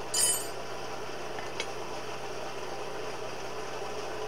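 Steady running noise of a blacksmith's forge, with a single short metallic clink that rings on briefly just after the start, metal set down on metal at the anvil, and a faint tick about a second and a half in.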